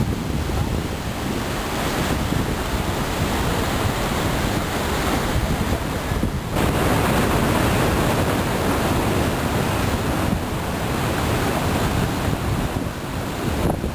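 Steady rush of water from the Iguazu Falls cataracts, with wind buffeting the microphone. It breaks off briefly about six seconds in and comes back a little louder.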